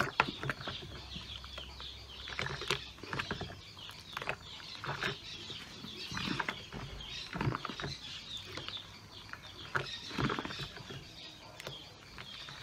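Foamy homemade liquid soap sloshing and splashing in a plastic basin as it is scooped up with a plastic cup and poured back, in irregular splashes every second or two. Chickens cluck faintly in the background.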